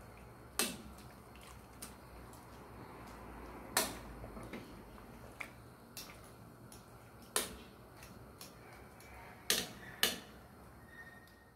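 Metal tongs clicking sharply about five times, the last two close together near the end, as they press papaya leaves down in a non-stick pot, over the steady low hiss of boiling water.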